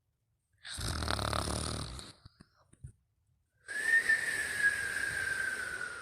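A sleeper snoring: one rough snoring breath, a few small clicks, then a longer breath with a thin whistle that slides slowly down in pitch.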